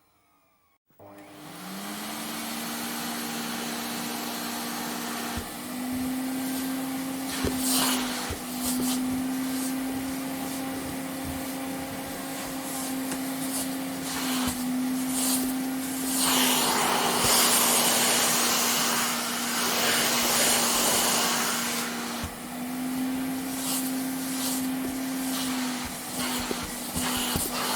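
Vacuum cleaner switched on about a second in, its motor whine rising as it spins up, then running steadily over a loud rush of air. The motor's pitch steps up and down slightly several times, and the air rush swells for several seconds in the middle.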